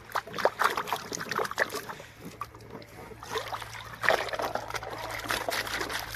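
Water splashing and trickling as a plastic toy truck is washed, with scattered irregular knocks and clicks of the toy being handled and a steady low hum underneath.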